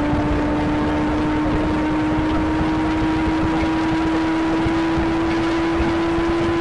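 Kawasaki ZX-25R's inline-four engine pulling steadily in fifth gear, its pitch rising slowly and evenly as the bike gains speed, under heavy wind rush on the camera microphone.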